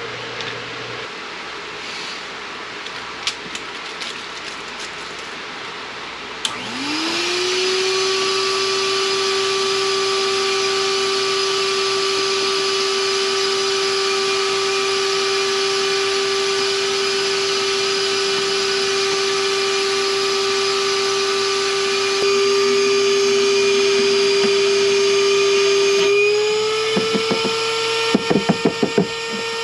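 An electric motor spins up about six seconds in and runs at a steady whine, like a vacuum or power tool. Near the end its pitch steps slightly higher and a quick run of rattling clicks is heard.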